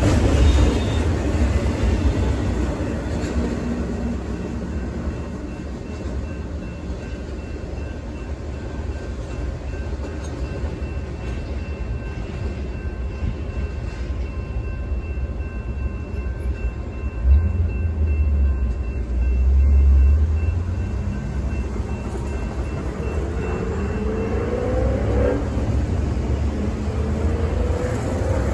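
Double-stack container freight train rolling past, its wheel and rail noise loudest at first and fading as the last cars clear the crossing. A couple of low rumbles come about halfway through. Near the end, road vehicles pull across the tracks, their engines rising in pitch as they accelerate.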